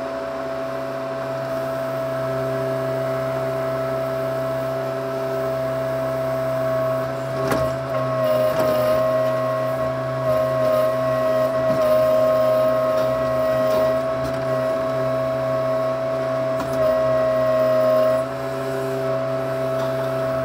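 Case 580C backhoe's engine running steadily, heard from inside the cab, while the boom swings and digs. It gets a little louder and more uneven in the middle, with a few knocks there.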